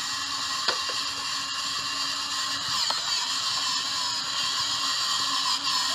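Steady whirring of a small electric gear motor, with a couple of faint clicks.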